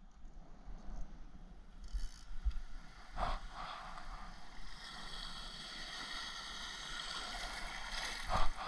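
Shallow sea water washing and lapping around a wader's legs, with two brief splashes, about three seconds in and near the end.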